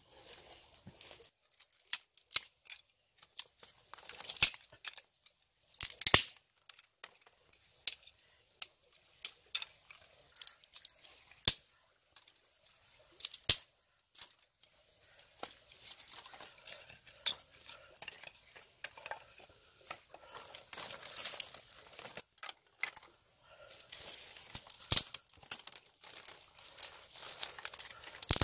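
Dry sticks and twigs being handled, snapped and laid on stones, with the crinkle of dry leaves: scattered sharp snaps and clicks, coming thicker near the end.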